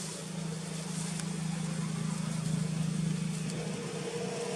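A motor running steadily with a low hum that swells slightly about halfway through, with a couple of faint clicks over it.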